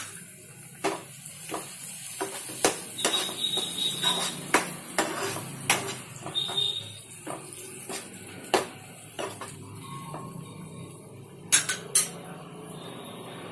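A cooking utensil stirring and scraping chopped onions, tomatoes and green chillies in a nonstick frying pan, knocking against the pan at irregular moments over the frying sizzle. Two sharper knocks come close together near the end.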